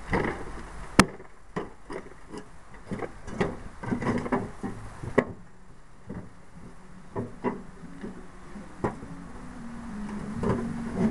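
Irregular knocks and clicks with rustling, the sharpest click about a second in: handling noise from a jacket sleeve rubbing and bumping against the camera.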